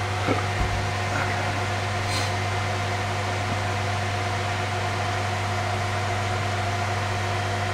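Steady hum and whir of a dual-Xeon file server running with its fan assembly and top cover off, its hard drives spinning while the motherboard goes through its power-on self-test.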